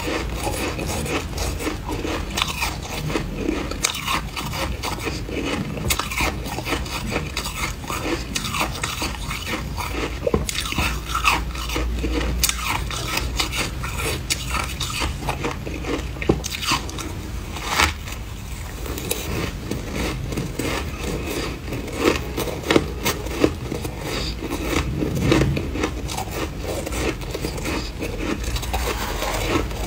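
Freezer frost being chewed and crunched, with a metal spoon scraping and scooping frost out of a glass dish. The sound is a dense, irregular crackle of small crunches throughout, with a few sharper crunches standing out.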